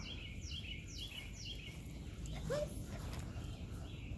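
A bird singing outdoors: a run of short, falling chirps repeated four or five times in the first second and a half, over a steady low background rumble. A brief rising squeak comes about two and a half seconds in.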